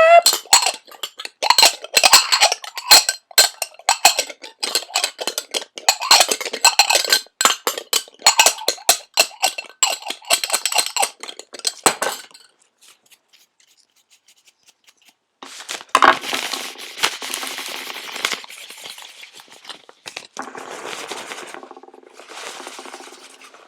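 A spoon clinking and tapping rapidly on plates for about twelve seconds, used as a homemade dish-clatter sound effect. After a short pause come several stretches of scratchy, rustling noise.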